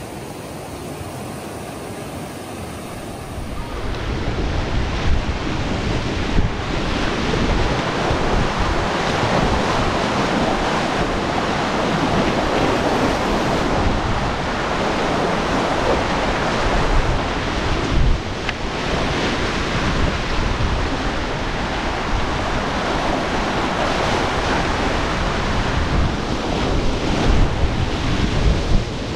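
Rushing river water with wind buffeting the microphone, a steady loud noise that steps up sharply about four seconds in.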